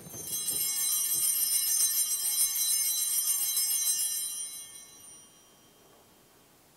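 Altar bells (a cluster of small Sanctus bells) shaken in a steady high ringing for about four and a half seconds, then fading away. They mark the elevation of the chalice at the consecration of the Mass.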